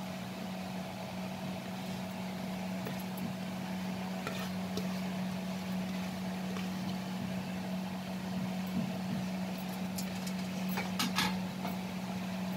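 A steady low hum, with a few soft knocks and scrapes as chopped vegetables are tipped from a plate into a bowl of gram flour, the clearest about four and a half and eleven seconds in.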